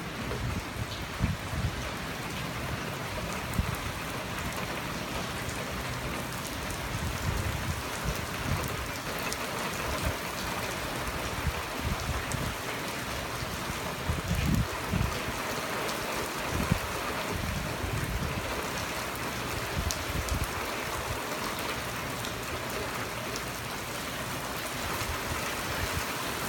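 Heavy rain falling on open lake water: a steady hiss of countless drops striking the surface. Irregular low rumbles come and go underneath.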